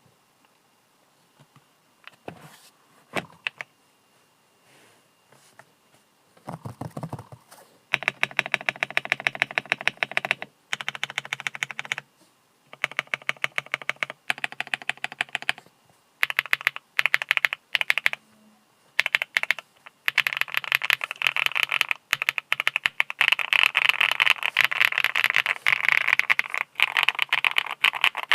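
Typing on a JamesDonkey A3 gasket-mount mechanical keyboard with a polycarbonate plate. A few single keystrokes come first, then short runs of fast typing from about eight seconds in, with brief pauses between them. The typing runs near-continuous over the last third.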